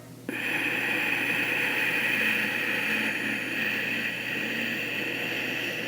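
Ujjayi breath: one long, steady breath drawn through a narrowed throat, making an even hiss. It starts abruptly just after the beginning and holds for over five seconds.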